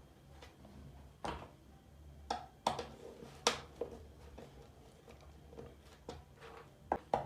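Light switches and wiring parts being handled and set down on a work surface: a scattered series of sharp clicks and knocks over a faint steady hum.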